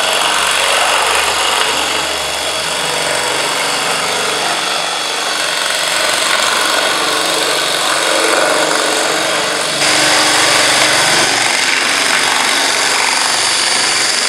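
Cordless drill driving a Malco Turboshear CM attachment, shearing steadily through corrugated metal roofing sheet: a loud, continuous whining cutting noise that steps up slightly about ten seconds in.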